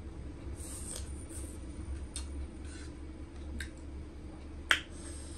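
Close-miked eating of noodles: soft wet chewing and slurping sounds in short bursts, with one sharp click a little before the end.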